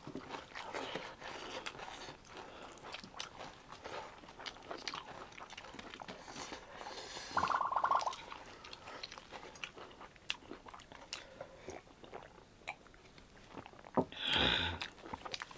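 Close-up eating sounds: chewing and biting a mouthful of rice and pork curry, with many small wet mouth clicks. A brief pitched sound comes about halfway through, and a louder short sound comes near the end.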